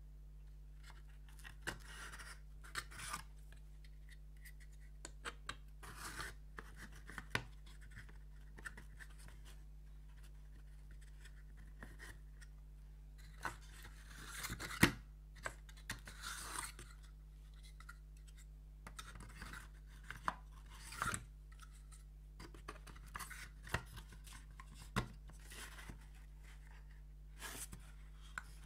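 Thin laser-cut wooden puzzle pieces being handled and fitted together: scattered light clicks, short scrapes and rustles, with one sharper click about halfway through.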